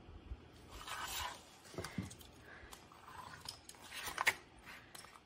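A thin pewter sheet being handled and lifted off a hard work surface, crinkling and scraping in short bouts, with a few sharp clicks about four seconds in.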